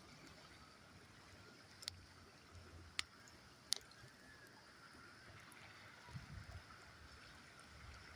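Wood campfire crackling: three sharp pops a second or so apart, over a faint steady hiss of flowing river water.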